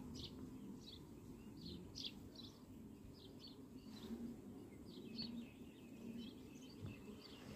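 Faint, repeated short chirps of small birds over a low, steady hum of honeybees crowding an open hive frame.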